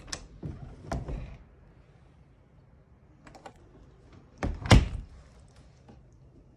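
Panelled interior door worked by its metal knob: the knob turns and the latch clicks, with knocks as the door moves, then one loud thunk about four and a half seconds in.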